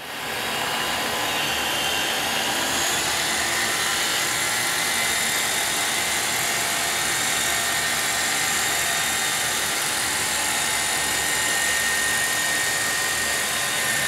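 Roomba robotic vacuum running steadily, a whirring motor and fan noise with a faint whine, as it drives itself into its docking station; the noise stops at the very end as it docks.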